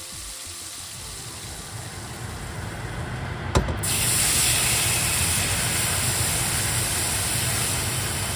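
Cube steaks sizzling as they pan-fry in oil. Nearly four seconds in, after a click, the sound switches suddenly to a louder, hissier sizzle as milk is poured into the hot skillet drippings for milk gravy.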